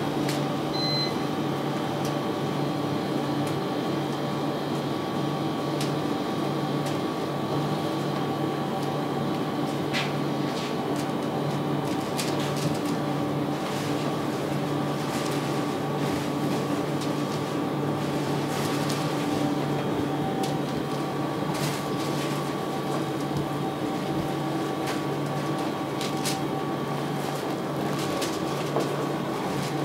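A machine running with a steady hum of several fixed tones, with light clicks and taps now and then.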